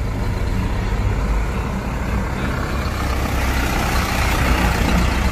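Truck's diesel engine running as the truck drives past close by, growing a little louder about four seconds in.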